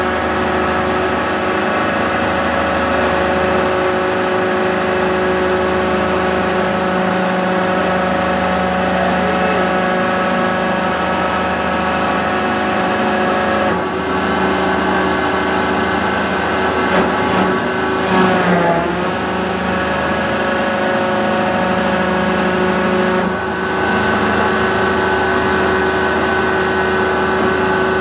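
Construction machinery running steadily, a loud constant engine drone with a fixed pitch, which shifts slightly about halfway through and again later.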